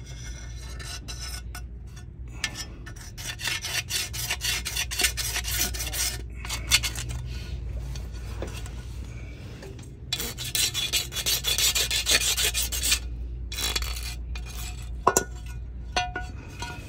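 Razor blade scraping old gasket material off the steel flange of a golf cart's rear-end (differential) pan, in rapid repeated strokes with two longer, heavier spells of scraping.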